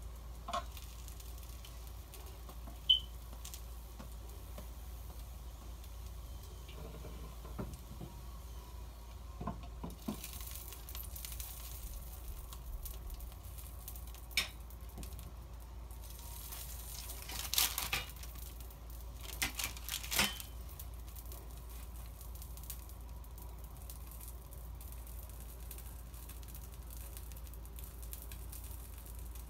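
Faint sizzling from a cake cooking in an electric round grill, broken by a few short knocks and clinks as the glass lid is set on and kitchen utensils are moved, with some plastic rustling.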